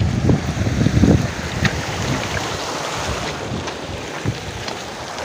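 Wind buffeting the microphone in heavy low gusts for the first second or so, then a steady rushing hiss with a few faint clicks.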